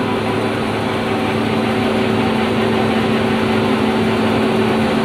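Paper cup printing machine running steadily, an even mechanical whir with a constant low hum as the paper web feeds through its rollers.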